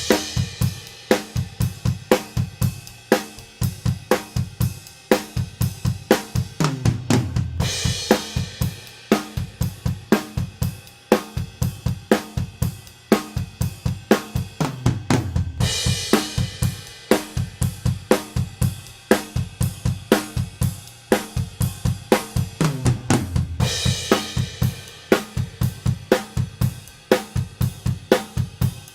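Acoustic drum kit playing a steady groove of kick, snare and hi-hat. A crash cymbal opens each four-bar phrase about every eight seconds, with a descending fill leading into it.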